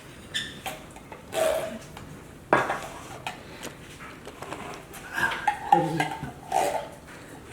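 A spoon knocking and clinking against a bowl and dishes, in separate irregular clatters.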